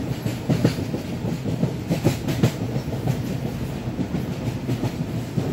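Freight train of covered goods wagons rolling past: a steady heavy rumble, with the wheels clattering in quick irregular clicks over the rail joints.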